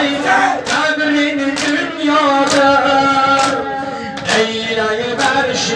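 Men chanting a sung mourning lament together, with one strong voice holding long notes. Under the singing, the group beats their chests in unison about once a second, six sharp slaps in a steady rhythm.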